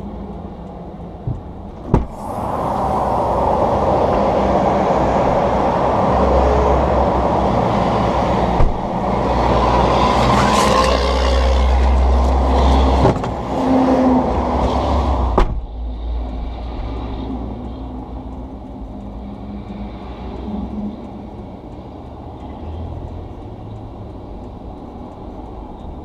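Highway traffic rushing past. It is much louder for about thirteen seconds while the car's rear hatch stands open, with a sharp clunk as the hatch opens about two seconds in and another as it shuts at about fifteen seconds.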